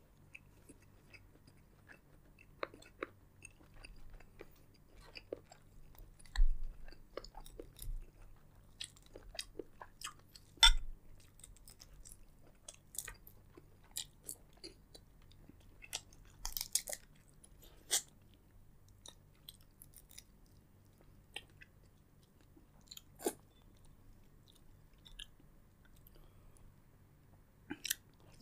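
A person eating seafood boil close to the microphone: wet chewing and crunching with scattered sharp clicks and cracks, two of them louder, about six and eleven seconds in.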